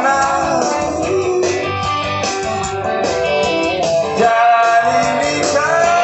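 A live rock band playing through the stage PA: electric guitars leading over bass and drums, with sustained melodic guitar lines.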